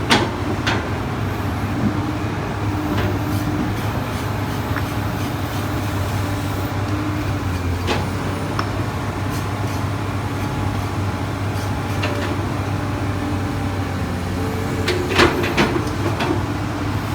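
Komatsu PC200 hydraulic excavator's diesel engine running steadily while it digs, with a few sharp knocks from the machine, a cluster of them near the end.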